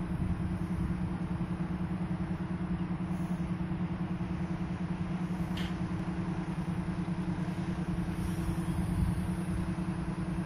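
ČD class 842 diesel railcar's engine idling at standstill: a steady low drone with an even, pulsing beat.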